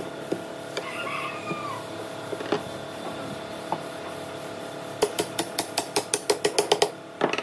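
A hammer tapping a flat chisel against the laminate panel of a wooden speaker cabinet: about a dozen sharp, quick strikes starting about five seconds in, after a few scattered light knocks.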